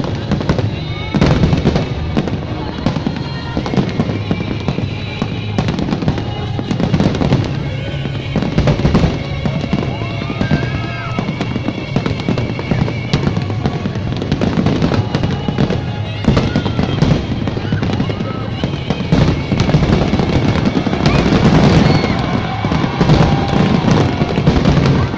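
Fireworks display: a dense, continuous run of aerial shells and cakes bursting and banging, with a music soundtrack playing underneath.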